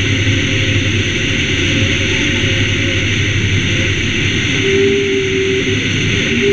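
Citabria 7ECA's four-cylinder Lycoming engine and propeller running steadily in flight, with wind rushing over a camera mounted outside on the airframe.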